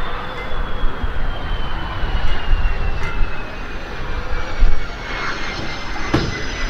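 Saab JAS-39 Gripen's Volvo RM12 turbofan rolling out on the runway after landing, a thin whine falling slowly in pitch over a steady low rumble.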